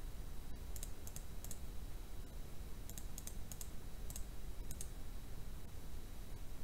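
Light clicking at a computer, about nine clicks with some in close pairs: a few about a second in, then a run of them in the middle. A steady low hum lies underneath.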